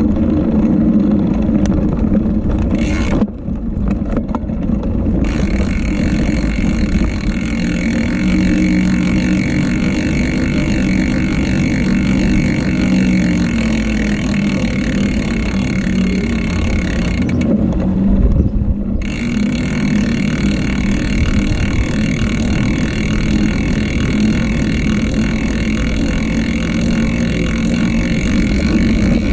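Steady wind and road rumble on the microphone of a camera riding on a moving bicycle. The hiss briefly drops out twice, about three seconds in and again past the middle.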